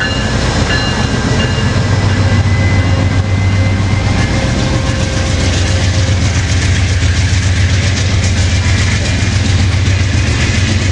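A train at close range, a diesel locomotive's engine giving a steady low drone over a haze of rail and wheel noise.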